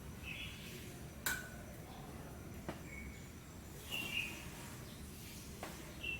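Birds chirping now and then over a steady low background hum, with a few sharp clicks, the loudest about a second in.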